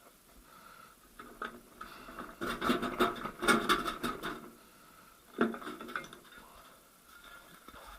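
Irregular metallic clinks, knocks and scrapes of steel gearbox parts and hand tools being handled during the teardown of a manual gearbox, thickest in a cluster a few seconds in and with one sharp knock past the middle.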